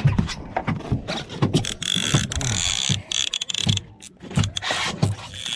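Conventional saltwater fishing reel being cranked fast by hand, its gears whirring and clicking, with a steady high whine through the middle of it.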